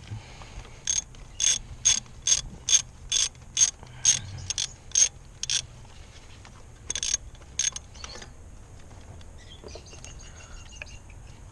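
Socket ratchet wrench clicking in short repeated strokes, about two clicks a second, while a spark plug is being loosened on a 3.5 L V6; after a pause, a few more clicks follow.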